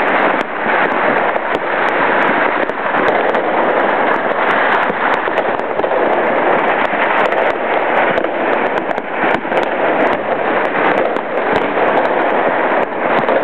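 Many fireworks and firecrackers going off at once: a loud, continuous crackling din thick with sharp pops, with no single burst standing out.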